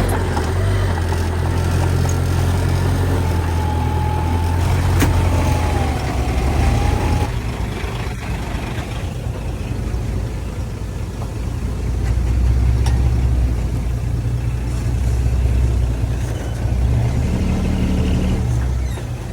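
Heavy diesel earthmoving machinery running, its low engine rumble rising and falling with the load. A thin whine slides in pitch over the first several seconds and stops about seven seconds in, where the sound changes abruptly.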